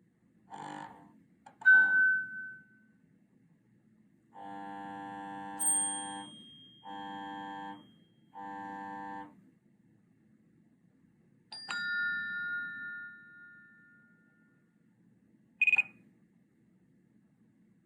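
Apple Watch notification alerts played one after another: a short burst and a bright chime, then three buzzy tones (a high ping over the first), then a click with a two-note ringing chime, and near the end a short high blip. These are the replacement notification sounds the tweak puts on the watch.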